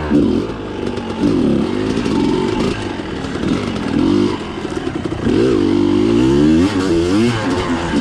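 Yamaha YZ250 dirt bike engine being ridden, revving up and down over and over, its pitch rising and falling with the throttle every second or so.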